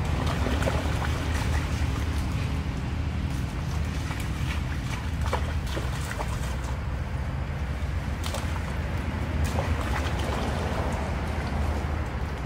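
Steady low rumble of wind buffeting the microphone, with scattered faint clicks and small splashes over it.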